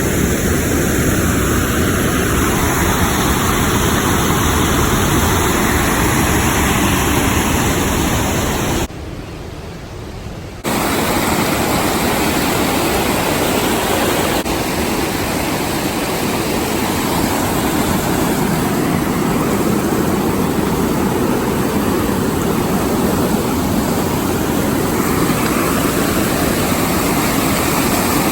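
Loud, steady rush of fast-flowing water, dropping away abruptly for under two seconds about nine seconds in.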